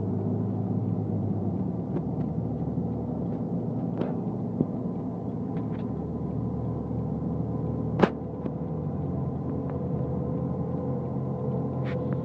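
Vehicle engines running while driving off-road, heard from inside a moving vehicle's cabin: a steady drone whose pitch shifts a little twice. A few short sharp clicks or knocks sound over it, the loudest about eight seconds in.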